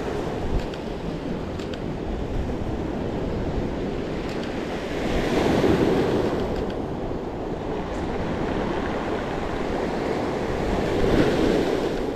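Small Lake Superior waves breaking and washing over a pebble beach, with two bigger surges, one about halfway through and one near the end. Wind buffets the microphone.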